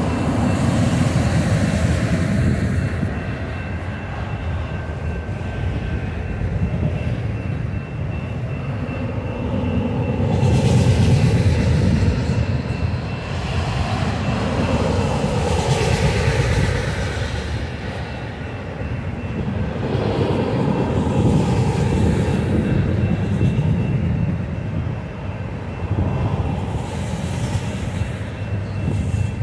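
Freight train of autorack cars rolling past a grade crossing: a steady rumble and clatter of steel wheels on rail that swells and eases as each car goes by. A faint steady high ringing, the crossing's warning bell, runs underneath.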